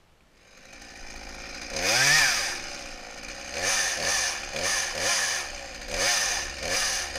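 Chainsaw running, revved up and back down in short bursts: one loud rev about two seconds in, then about five quicker ones.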